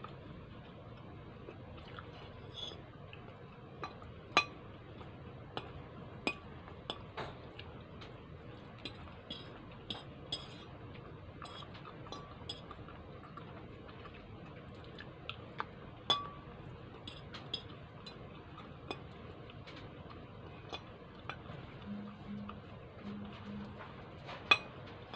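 A metal fork clinking and scraping against a plate while eating spaghetti, in scattered sharp clinks at irregular intervals, a few of them louder.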